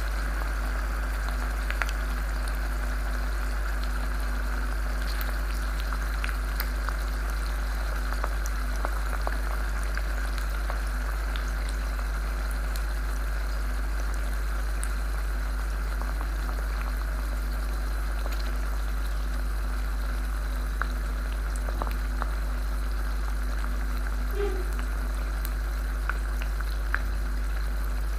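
A hot iron ball sizzling steadily among popcorn kernels in a glass beaker, with scattered faint crackles, over a steady low hum.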